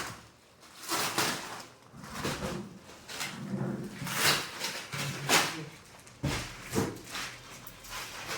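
A large cardboard box being handled and opened: a string of sharp knocks, scrapes and rustles, about one a second.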